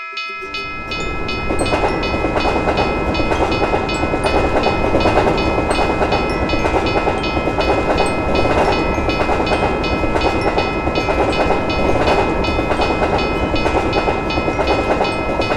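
A train running by with a steady rumble and clatter of wheels on rails. It starts abruptly just after the start and holds steady throughout. A tune with fast, evenly repeating bell-like notes plays underneath.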